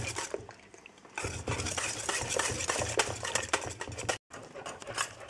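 Metal whisk stirring thick gachas (flour porridge) in a pan, rapid clicking and scraping against the pan's sides and bottom. The steady stirring keeps lumps from forming. It is quieter for about the first second, then runs fast and dense.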